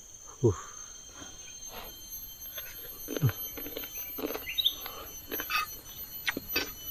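Eating from an iron pan: a metal spoon clinking and scraping on the pan, with chewing and a couple of short falling mouth sounds, over a faint steady high tone.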